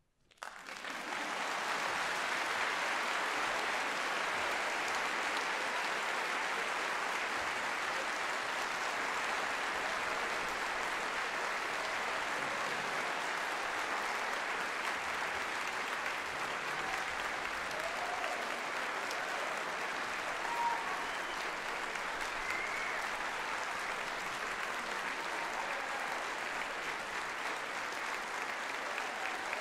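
Audience applause, starting suddenly and holding steady throughout.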